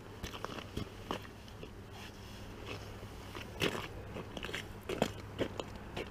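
Ice-fishing boots crunching and scuffing on lake ice close by: irregular sharp crunches and clicks, over a faint steady low hum.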